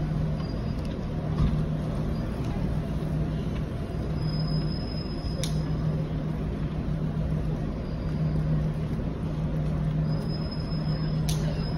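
City intersection traffic noise: a steady low engine hum from idling road vehicles over the general street hum, with two sharp clicks, one about five seconds in and one near the end.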